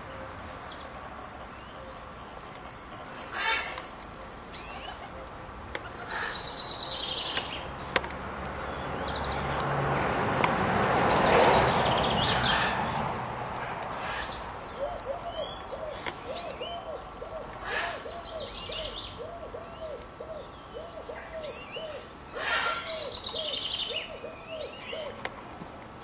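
Birds calling in a garden: short high chirps several times, and from about the middle a fast run of low, repeated notes, about two a second. A broad swell of noise rises and falls near the middle.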